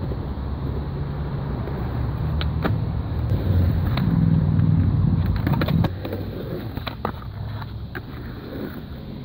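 Skateboard wheels rolling on concrete: a low rumble that grows louder as the board passes close, then drops off suddenly about six seconds in. Several sharp clacks from the board are scattered through the middle of the pass.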